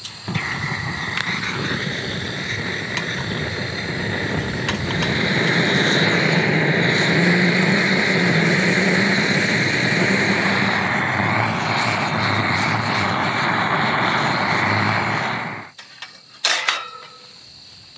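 Handheld butane torch burning with a steady rushing noise as its flame is held on charcoal in a small grill to light it. It shuts off suddenly near the end, followed by a sharp metallic clank of the grill grate.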